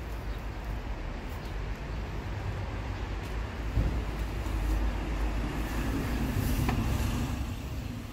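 Street noise: a steady low rumble of traffic, growing louder about halfway through.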